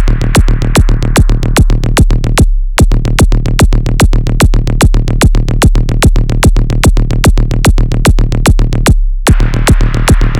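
Electronic techno track with a steady drum-machine beat of about four hits a second over a continuous deep bass. The beat drops out briefly twice, about two and a half seconds in and again near the end, leaving only the bass.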